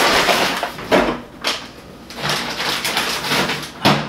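Handling noises as a paper bag of flour is carried to the refrigerator and put away: paper rustling, a few knocks, and a sharp thud near the end.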